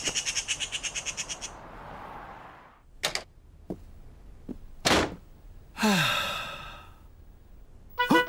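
Cartoon magpie's rapid rattling chatter, about ten notes a second for a second and a half, followed by a couple of sharp knocks.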